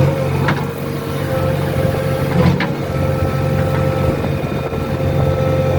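JCB 3DX backhoe loader's diesel engine running steadily, heard from inside the cab, with a steady higher tone above the engine note. Two short knocks come about half a second and two and a half seconds in.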